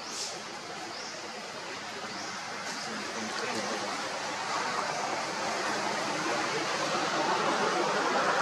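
Outdoor background noise: an even rushing that grows steadily louder, with faint short high chirps every second or so.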